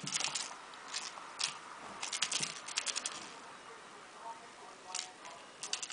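A kitten playing with a wand toy on a tile floor: quick runs of light clicks and scratches, in bursts of several ticks, the busiest stretch about two seconds in.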